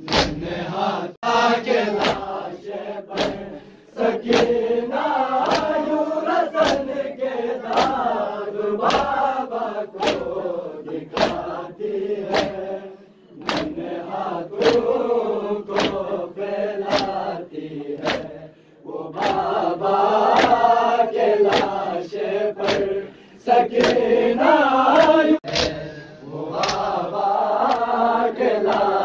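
A crowd of men chanting a noha (Shia mourning lament) in unison, line by line with short breaks. Through it runs a steady beat of sharp slaps from matam, palms striking bare chests in time with the chant.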